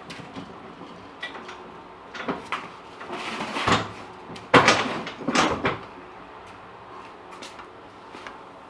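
A run of knocks, bangs and clatter, as of things being handled and moved around a snowmobile on its trailer. The loudest bangs come about halfway through.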